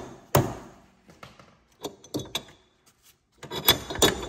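Sharp knocks of hand tools on a wrench fitted to a suspension nut. One loud knock comes about half a second in, light clicks follow, and two loud knocks come close together near the end.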